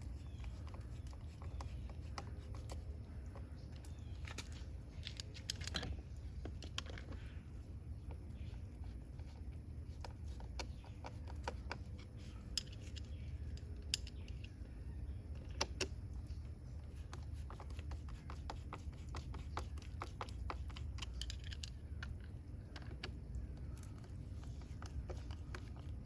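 Scattered small metallic clicks and ticks of a hand screwdriver turning screws in a spa fitting's cover, over a steady low hum.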